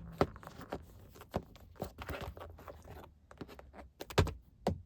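Handling noise from a small wallet being picked up and turned over: irregular light clicks, taps and rustling, with two louder knocks a little after four seconds as items are put down.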